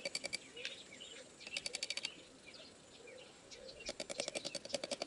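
Quick runs of light, rapid taps as pincers strike the handle of a knife held point-down on an ostrich egg, the knife tip chipping a small hole in the thick shell. Three runs of taps, the last and longest near the end, with faint bird chirps between them.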